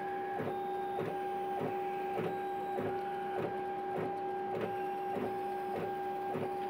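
60 W CO2 laser cutter engraving acrylic: its head's drive motors whine steadily as it sweeps back and forth, with a regular click about every 0.6 seconds.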